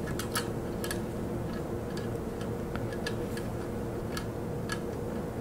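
Light, irregular clicks of small metal cap screws and keys being handled and set into a fixture plate by hand, over a steady background hum.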